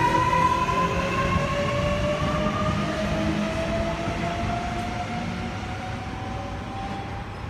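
Sydney Trains M-set (Millennium) electric train accelerating away from the platform: its traction motors give a whine that climbs steadily in pitch over a low rumble, growing fainter as it pulls away.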